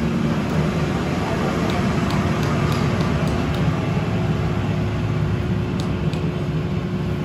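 Steady machine drone in a metal-casting workshop, with a constant hum under it and a few faint light ticks.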